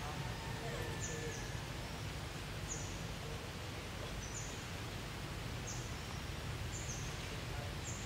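Outdoor ambience: a steady low rumble under short, high, downward chirps that come irregularly about once a second.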